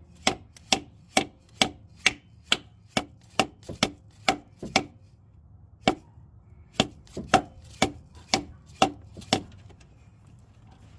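Mallet striking a new brass freeze plug in the engine block of a Jeep 4.0 inline-six, tapping it into its bore. About two sharp knocks a second, a short pause about five seconds in, then another run of knocks that stops about nine and a half seconds in.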